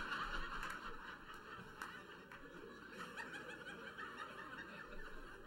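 Audience laughing in a theatre, loudest at the start and slowly dying down.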